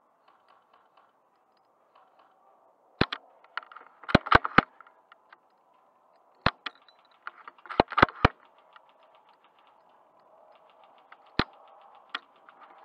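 Airsoft guns firing sharp cracks, singly and in quick groups of two or three, with lighter clicks in between.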